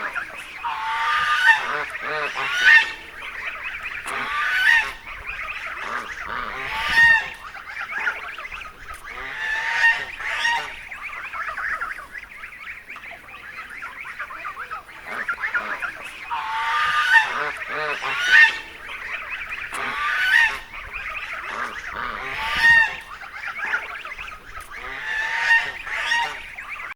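Geese honking over and over, calls coming in clusters every couple of seconds, with a quieter stretch near the middle.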